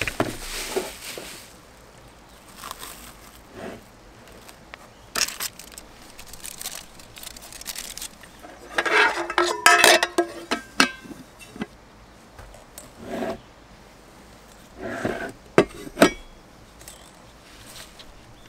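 Cookware and food packaging handled on a plastic camp table: scattered clinks and scrapes, a burst of crinkling and squeaking plastic wrap being pulled off a bowl about ten seconds in, and two sharp knocks about sixteen seconds in as a pot is set down.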